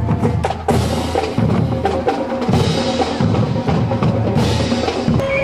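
Marching band drum line playing a marching cadence on bass and snare drums.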